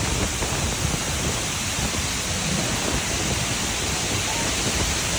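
Water released over a dam spillway, pouring down a multi-tiered waterfall: a steady, even rush of falling water.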